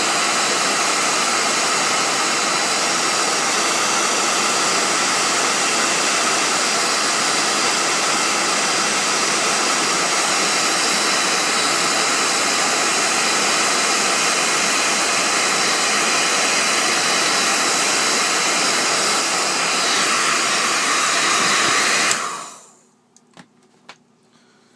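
Hot air gun blowing steadily as it reflows solder paste on surface-mount chips. It is switched off about 22 seconds in and its rush dies away over about a second, followed by a few faint clicks.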